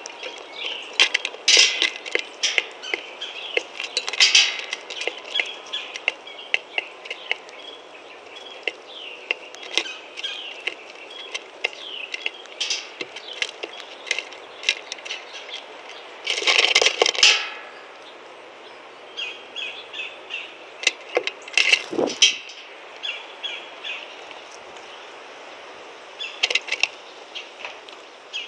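Blue jay and red-winged blackbird pecking and rummaging among sunflower seeds and in-shell peanuts on a wooden feeder board: quick, irregular taps and clicks of beaks, seeds and shells. About halfway through comes a denser clatter lasting about a second, and a few seconds later a single heavier thump.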